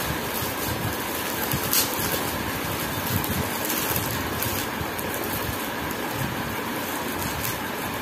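Clear plastic wrapping rustling and crinkling as it is peeled off a small toy instrument by hand, over a steady background whoosh like a room fan or air conditioner.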